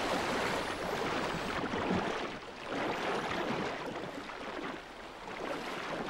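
Sea water splashing and rushing as a pod of dolphins breaks the surface at speed.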